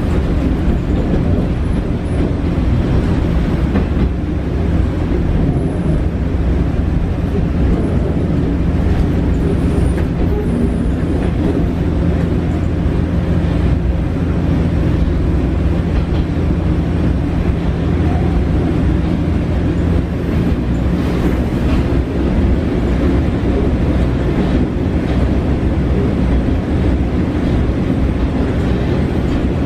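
Cabin interior of a JR Shikoku KiHa 40 diesel railcar running along the line: a steady diesel engine hum under the rumble of wheels on rails, holding an even pitch.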